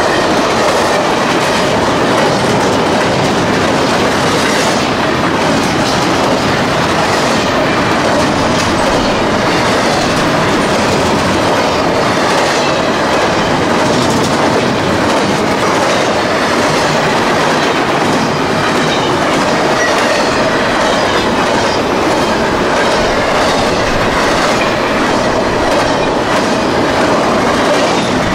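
CSX intermodal freight train of double-stack well cars passing close by, a steady loud rumble with the rhythmic clickety-clack of its wheels over the rail joints.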